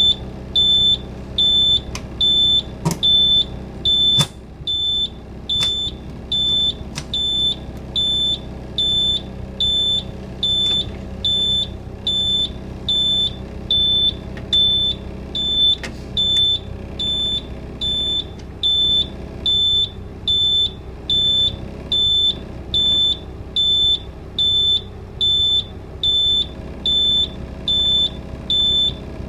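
Bus dashboard low-air-pressure warning beeping steadily, a little faster than once a second: the air-brake system has not yet built up pressure after a cold start. Underneath, the Cummins 8.3 diesel idles a little rough, with two sharp clicks about three and four seconds in.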